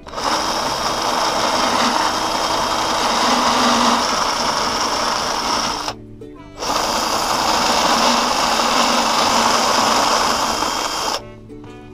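Electric hand drill boring a hole into a cast aluminium engine case with a dull twist bit, in two long runs with a short stop about six seconds in.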